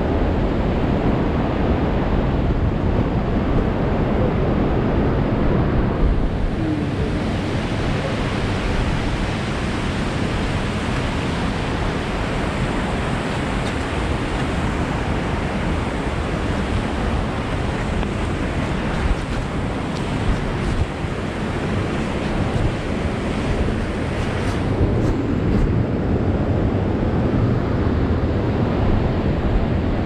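Steady roar of rushing water from a waterfall, mixed with wind noise on the microphone, with a few faint rustles about two-thirds of the way through.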